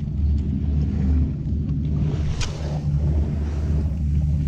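Boat's outboard motor running steadily, a low rumble, with a single sharp click about two and a half seconds in.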